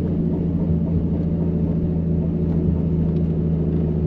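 Turbocharged Nissan RB30 straight-six in a VN Commodore running steadily, an even low drone with no revving.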